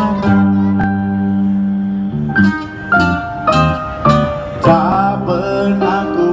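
Live acoustic band playing a ballad's instrumental intro: acoustic guitar and bass guitar with keyboard, a run of plucked notes over a steady bass line.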